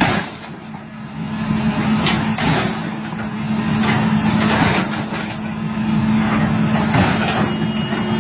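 Diesel engine running with a steady hum, with a few sharp knocks as an excavator bucket strikes a car. A faint high whine comes in near the end.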